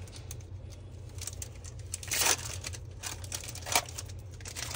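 Crinkling and rustling of foil Yu-Gi-Oh booster packs and cards being handled, in two short bursts about two seconds in and near four seconds, with faint light clicks between.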